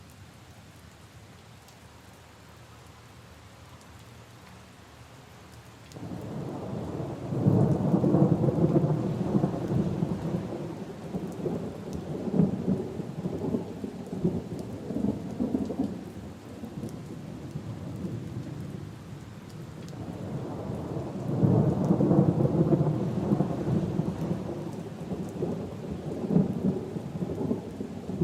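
Rain falling steadily, then about six seconds in a long roll of thunder breaks in suddenly and rumbles on for over ten seconds before dying down. A second roll of thunder swells up a little after the middle and is still rumbling at the end.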